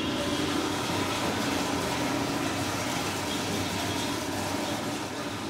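A steady mechanical rushing noise, like a blower or fan running, with a faint hum in it.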